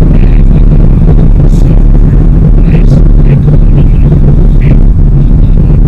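Steady engine and road noise of a 2016 Chrysler 200C sedan on the move, heard inside the cabin, loud and unchanging.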